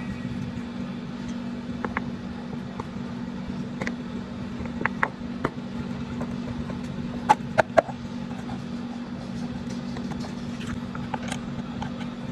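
Honda Vario scooter engine running at low revs, a steady hum with scattered sharp clicks, the loudest a quick run of three about seven seconds in.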